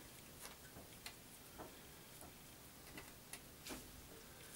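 Near silence with faint, irregular soft clicks and taps, about seven in four seconds, as thin raw potato slices are picked from a bowl and laid onto rolled yeast dough.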